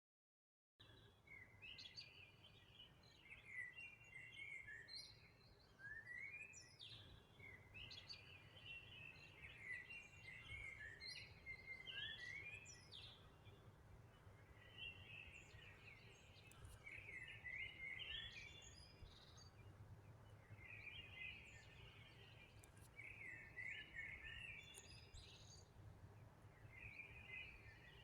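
Faint songbird singing: short chirping phrases repeated every couple of seconds over a low steady background hum, starting just after a moment of dead silence.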